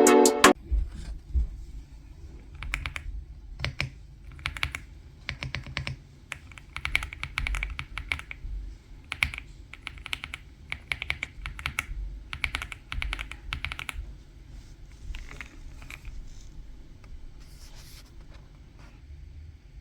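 Aula F75 mechanical keyboard being typed on: runs of quick key clicks with short pauses between them.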